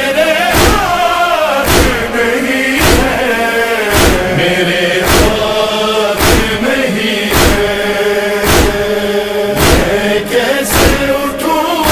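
Wordless chorus of voices chanting a drawn-out, wavering lament melody in a noha, over a deep thump about once a second that keeps a steady beat.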